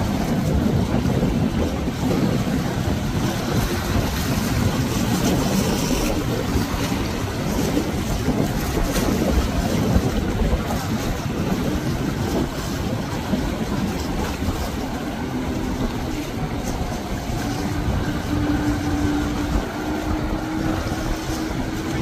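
Wind rumbling on the microphone over choppy surf, with a small boat's outboard motor running steadily. The motor's hum stands out more clearly in the last few seconds.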